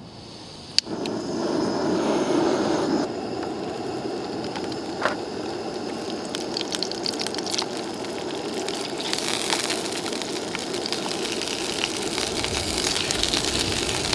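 Gas camping stove lit with a sharp click about a second in, its burner then running with a steady roar. From about the middle on, slices of Spam luncheon meat sizzle and crackle in the frying pan over it, the hiss growing louder near the end.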